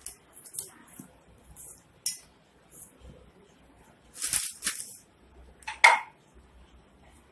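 A hand scrapes and rustles through dry wheat flour in a stainless steel bowl, in short bursts. About four seconds in there is a louder crinkle of the plastic flour packet, and near six seconds a sharp clink against the steel bowl.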